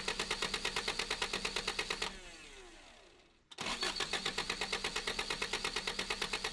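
Toyota 22RE four-cylinder engine cranked over by its starter in two tries, a fast even chugging of about ten beats a second, with the starter whining down after the first; the engine does not catch, which the owner takes for no fuel getting through.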